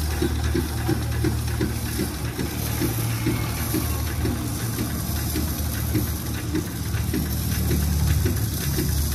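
A motor or engine running steadily: a low drone with a regular pulsing beat of about four a second.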